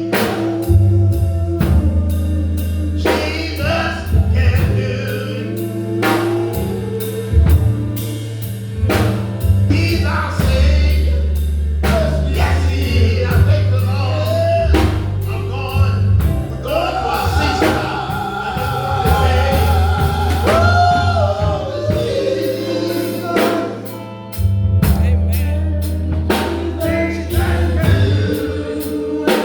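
Gospel group performing live: singers over a steady drum-kit beat, bass, keyboard and guitar, with one long sung note held with vibrato about halfway through.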